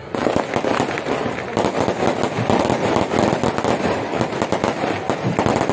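Fireworks going off in a dense, rapid run of crackling bangs that starts suddenly and keeps going.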